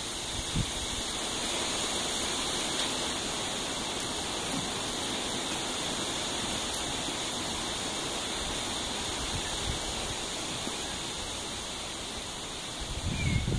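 Steady outdoor hiss with no distinct events. A low rumble comes in near the end.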